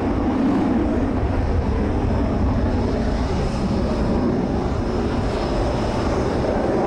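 F-16 Fighting Falcon's single turbofan jet engine during a display manoeuvre: a loud, steady, deep rumble of jet noise.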